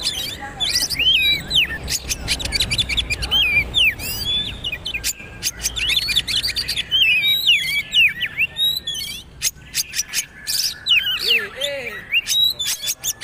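Oriental magpie-robin (kacer) singing a fast, varied song of sweeping whistles mixed with rapid clicking chatter, almost without a break.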